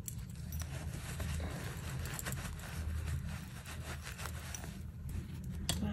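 Microfiber rubbing over a metal padlock, wiping off Brasso polish: a steady scratchy rubbing with a few light clicks.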